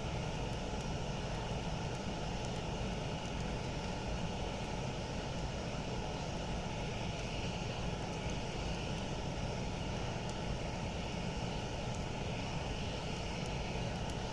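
Campfire burning with a steady low rumble and a few faint crackles.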